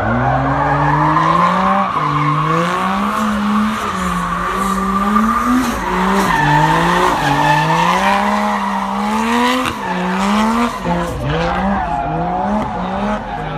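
Drift car sliding through a long continuous skid, its tyres squealing throughout while the engine revs rise and fall about once a second as the throttle is worked.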